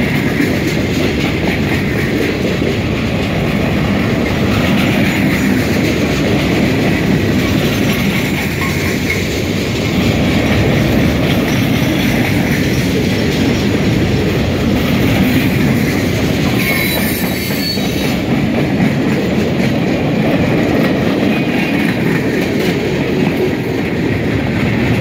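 Freight train of empty gondola cars rolling steadily past: a continuous rumble of wheels on rail with clickety-clack over the joints, and a brief high-pitched squeal about two-thirds of the way through.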